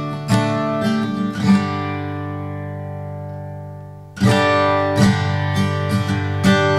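Background music: picked acoustic guitar. About a second and a half in, a chord is left ringing and fades away, then the picking starts again sharply near the middle.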